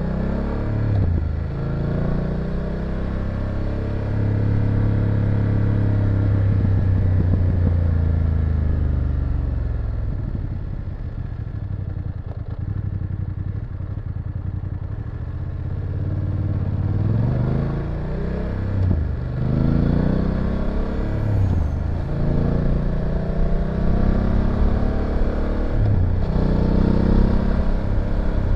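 BMW F850GS parallel-twin engine and exhaust on the move. It revs up through gear changes and holds high revs, winds down as the bike slows, then pulls hard again through several quick upshifts near the end.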